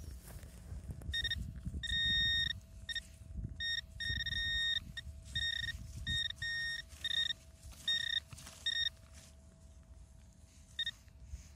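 Metal detector sounding its high beep on a buried target, in a run of short and longer bursts that stop and start as it is swept over the dug spot, with rustling from digging and handling underneath.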